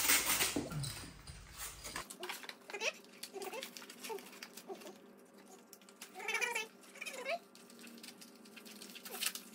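Plastic parts of an Adflo welding respirator's blower unit and belt being handled, clicking and rustling, for the first two seconds. Later, about six and seven seconds in, come two short wavering high-pitched calls.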